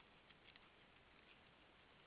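Near silence: a faint steady hiss with a few faint, soft ticks.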